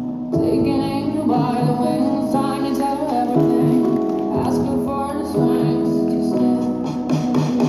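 Show music played over the loudspeakers, with a female singing voice over a regular beat.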